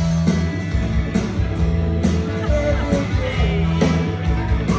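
A live rock band playing a song, with drum kit, electric guitar and bass guitar, loud and continuous.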